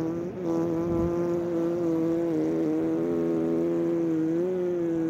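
A man blowing a long raspberry with his tongue between his lips: a steady buzzing tone held for several seconds, with small wobbles in pitch.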